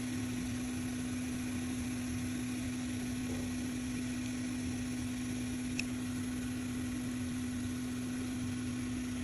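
A small electric fan or blower motor running with a steady hum, switched on just before.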